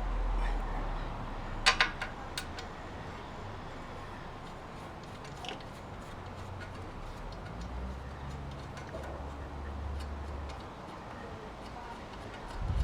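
A few sharp clicks and knocks of parts and tools being handled as the shredder is reassembled, the loudest a quick double click about two seconds in, over a low steady hum.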